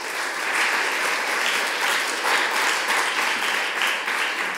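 Audience applauding, steady dense clapping.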